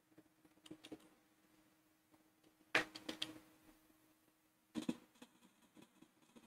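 Computer keyboard keystrokes in a few short clusters: faint taps just under a second in, a louder run of keys about three seconds in and another near five seconds, over a faint steady hum that stops partway through.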